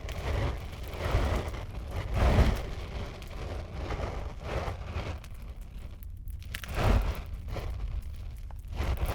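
Fire burning: a low, steady rumble of flames that swells about every two seconds, with crackling through it.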